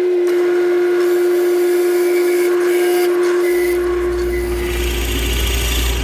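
Drill press and dust-collector suction running with a steady whine and hiss; about three and a half seconds in a low rumble joins as the Forstner bit bores into the wooden blank, throwing chips into the collector hose.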